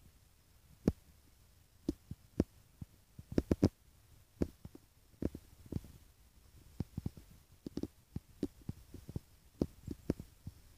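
Handling noise on a phone's microphone: irregular soft thumps and knocks, in uneven clusters, as the handheld phone is gripped and moved.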